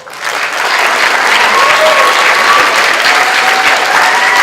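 Audience applauding, building up within the first second and then continuing loudly and evenly.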